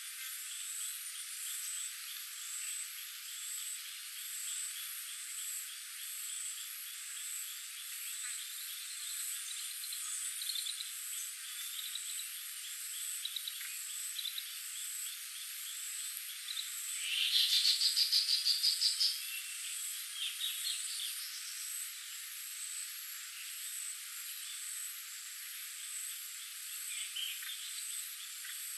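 Forest chorus of calling insects and frogs: a steady high trilling under faint, repeated pulsed calls, with a louder run of about a dozen rapid calls a little past halfway.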